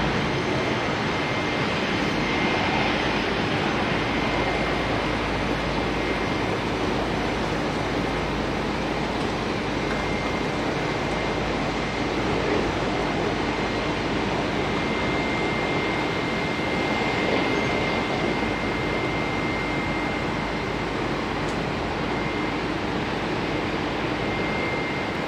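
Bombardier Dash 8 Q300's twin turboprop engines running as the aircraft moves along the runway: a steady drone with a thin, high whine over it.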